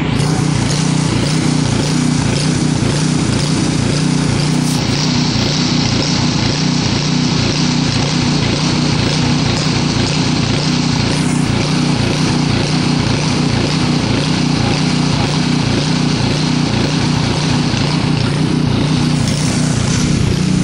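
A small engine running steadily at a constant speed with an even hum.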